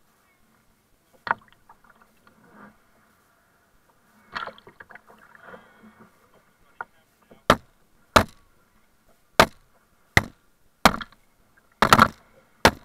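Kayak paddle strokes: the blades slapping and splashing into shallow water close beside the bow. A few scattered strokes come first, then from about halfway a steady run of sharp splashes about once a second.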